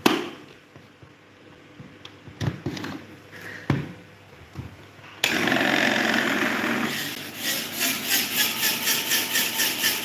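Switch clicks, then about five seconds in a small electric fan starts up suddenly and runs with a loud whirr that soon pulses evenly about four times a second.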